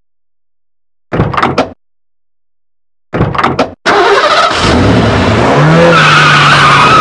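Car sound effect: two short bursts of engine noise, then the engine starts about four seconds in and revs with a rising pitch, with tyres squealing near the end.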